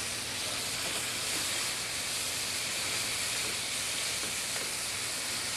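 Venison medallions sizzling steadily in clarified butter in a very hot sauté pan as they are turned with tongs.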